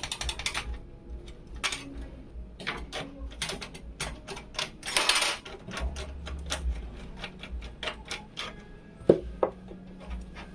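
Irregular clicks, taps and knocks of hard plastic and metal computer parts being handled and fitted during a PC build. There is a fast run of ratcheting clicks at the start, a brief rustle about five seconds in and a sharper knock near nine seconds.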